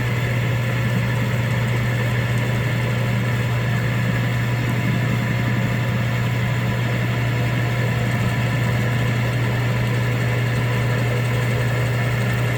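Drill press running steadily with a constant low motor hum while a 5/16-inch end mill takes a cutting pass across an airgun magazine lid.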